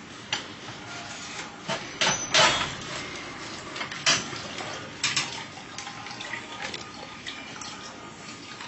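Irregular sharp knocks and clatter of coconuts and metal parts as a coconut vendor works his machine, loudest a little over two seconds in.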